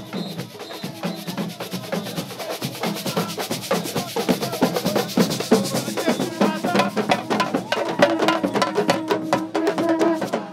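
Carnival street band drumming: snare drums and other percussion beating a fast, dense rhythm that grows louder after a few seconds, with a held note joining in about two-thirds of the way through.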